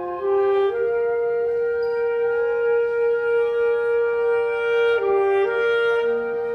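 Concert band of woodwinds and brass playing slow, sustained notes. One long note is held from about a second in until about five seconds in, then the melody steps to new notes, and a lower part comes in near the end.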